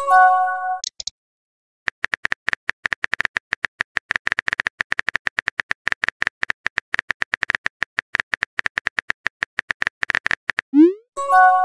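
Rapid tapping clicks of a texting app's keyboard sound typing out a message, running for several seconds. At the start and again near the end comes the app's message alert, a quick rising swoosh into a short bright chime of a few steady tones.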